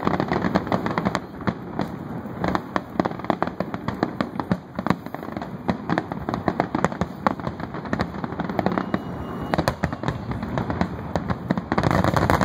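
Fireworks display: a rapid, continuous barrage of overlapping bangs and crackling from aerial shells, getting louder near the end.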